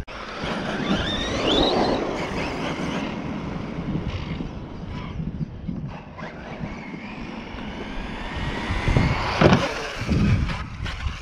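Arrma electric RC monster truck speeding across asphalt, its motor and drivetrain whining and rising in pitch as it accelerates, then a loud bang about nine and a half seconds in as it hits the ramp and launches into the air.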